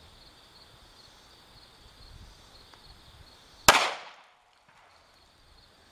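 A single gunshot from a DoubleTap .45 ACP pocket pistol firing a Winchester White Box 185 grain flat-nose round, a sharp loud crack about two-thirds of the way in that dies away quickly. Faint steady insect buzz underneath.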